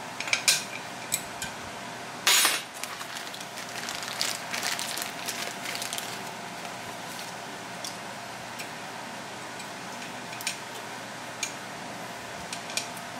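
Small steel parts clinking and knocking as coil springs and end caps are fitted by hand into a flywheel's torsion isolator. There is a louder clatter about two seconds in, then scattered taps over a steady faint hum.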